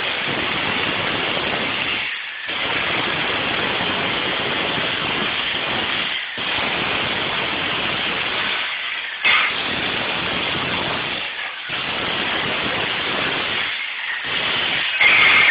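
Jackhammer hammering in runs of two to four seconds, with brief pauses between runs.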